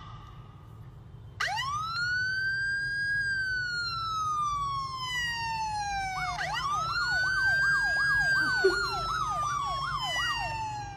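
Emergency-vehicle siren: a wailing tone that rises quickly and then slowly falls, then starts again about six seconds in with a fast warbling yelp, about three a second, sounding alongside the wail. A faint low hum runs underneath.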